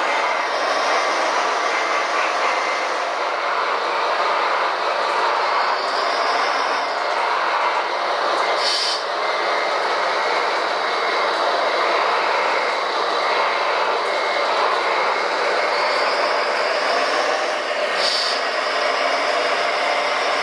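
Radio-controlled model construction machines running: small electric motors and gearboxes whirring steadily, with a high whine that rises and falls twice and two short hisses about 9 and 18 seconds in.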